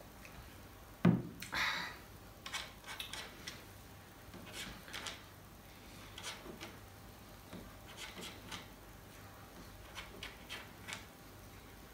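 A glass mug set down on a wooden desk with a knock about a second in. Then small spirulina tablets are picked out of a pile and pushed across the wooden desktop, making scattered groups of light clicks and rubs.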